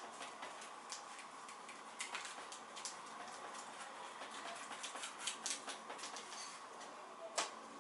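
A flat paintbrush dabbing and scrubbing acrylic paint onto a board on an easel: a run of irregular soft taps and scratches of the bristles, with one sharper knock near the end, over a faint steady hum.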